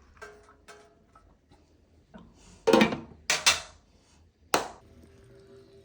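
Kitchen handling noises: a few faint clicks, then three loud, short clattering bursts between about two and a half and four and a half seconds in.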